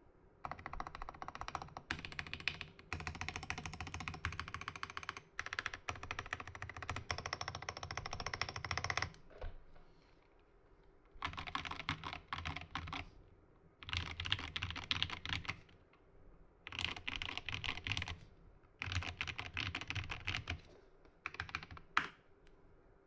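Typing on an Epomaker GK68XS mechanical keyboard with linear Gateron Milky Yellow switches: fast, dense key clacks. A long unbroken run of typing stops about nine seconds in, and after a short pause the typing comes in five shorter bursts.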